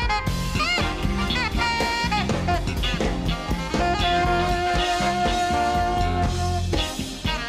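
Live jazz-fusion band playing: an alto saxophone plays quick bending phrases, then holds one long note from about four seconds in, over electric bass and drum kit.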